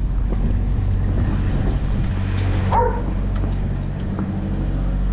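An engine idling with a steady low hum, and a dog giving one short whine a little under three seconds in.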